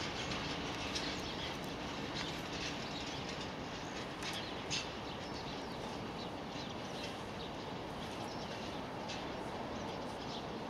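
Small birds chirping in short, scattered calls over a steady background hum, while the low rumble of a departing freight train fades out in the first few seconds.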